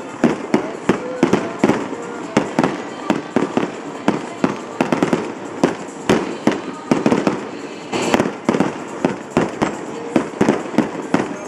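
Aerial fireworks going off in a steady barrage, sharp bangs following one another about three times a second.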